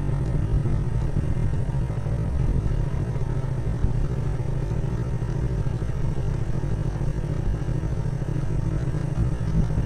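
Steady low rumble of a vehicle moving along a path, mixed with wind buffeting the microphone.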